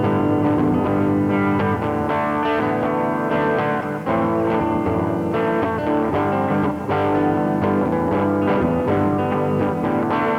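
Instrumental music led by a guitar: plucked notes and chords over a sustained, layered accompaniment.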